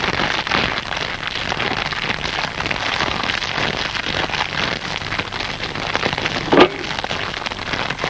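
A dense, steady crackling hiss made of many fine clicks, like rain or sizzling, with one brief louder sound about six and a half seconds in.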